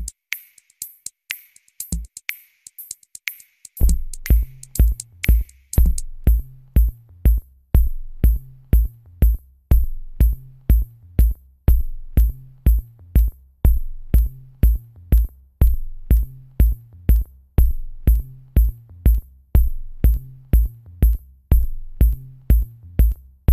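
Electronic background music on a drum-machine beat: only light, ticking hi-hats at first, then a heavy kick drum and bass come in about four seconds in and the beat runs on steadily.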